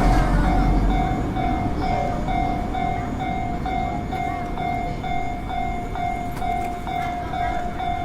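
Electronic warning bell of a Japanese railway level crossing, ringing a repeated ding about twice a second. Under it is a low rumble that fades during the first second or so.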